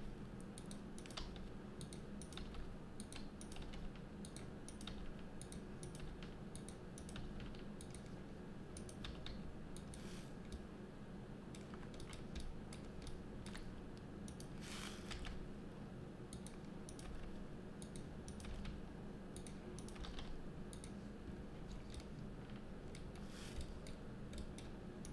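Computer keyboard keys and mouse buttons clicking now and then in an irregular scatter of short clicks, over a faint steady hum.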